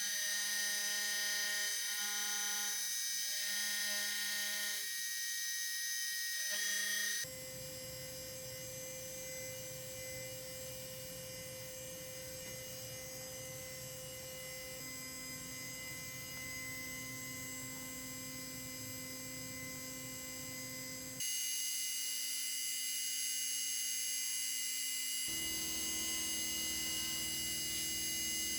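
Hobby CNC machine milling an aluminium part: a steady high spindle whine with lower stepper-motor tones that shift pitch as the axes move. The sound changes abruptly about 7, 21 and 25 seconds in, as separate machining clips follow one another.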